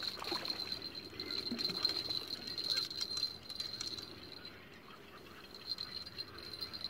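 Steady, high-pitched chirring of night insects, with scattered clicks and rustles of someone moving through the vegetation close by, busiest in the first few seconds.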